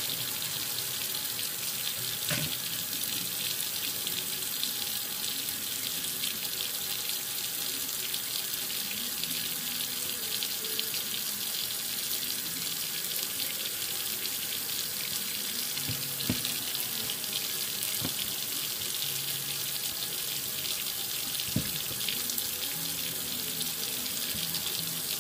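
Kitchen faucet running steadily into a stainless-steel sink, the stream splashing by the drain, with a few faint knocks.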